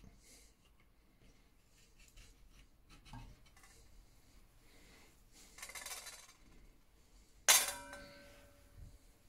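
A stainless steel mixing bowl struck with a sharp clink about three-quarters of the way through, ringing on with a clear metallic tone that fades over about a second. It follows a short scraping rustle of utensil handling in the bowl.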